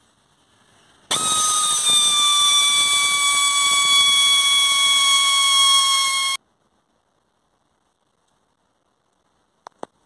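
Electric drill boring a bolt hole in a backhoe's steel frame rail: a loud high whine whose pitch sags slightly as the bit bites. It starts about a second in and cuts off abruptly after about five seconds; two faint clicks follow near the end.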